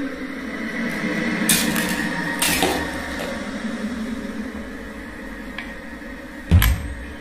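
A cabinet drawer being handled: two short scraping slides early on, then a heavy thump about six and a half seconds in as it is pushed shut. A steady low hum lies underneath.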